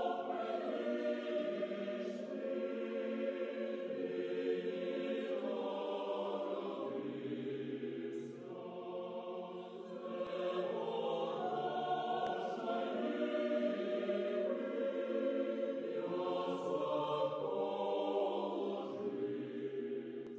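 A church choir sings a slow hymn in long, held chords, with a short lull about halfway. It begins to fade near the end.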